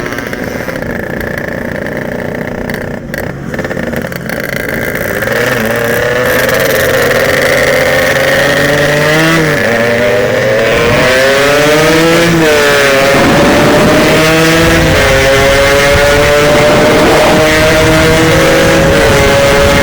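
Yamaha RX-King's single-cylinder two-stroke engine accelerating hard at full throttle. Its pitch climbs and drops back at each of several gear changes, then rises only slowly in a high gear toward top speed.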